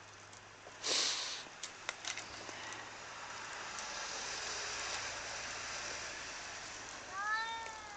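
A cat meows once near the end, a single short cry that rises and falls in pitch. Before it there is a brief rustling scrape about a second in, then a steady hiss.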